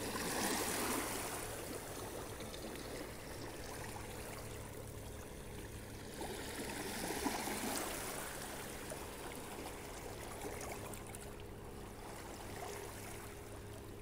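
Small waves lapping and washing onto a sandy lake shore, swelling and easing off in slow surges.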